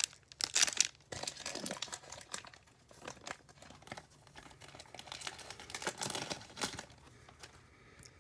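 Trading card pack wrapper crinkling and rustling in the hands as the cards inside are handled, in short irregular bursts, loudest about half a second in and quieter near the end.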